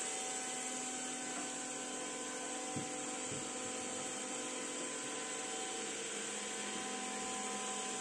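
Xiaomi Xiaowa Roborock Lite robot vacuum running steadily as it drives across a wooden floor: a motor whine over a hiss, with a faint knock about three seconds in.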